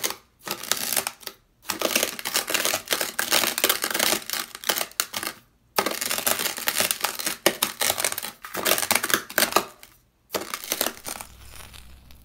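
Dry, coarse beach sand crunching under a steel knife and a white ceramic knife pressed and dragged through it on sandpaper: loud, gritty crunching in long passages broken by a few short pauses, fading out near the end.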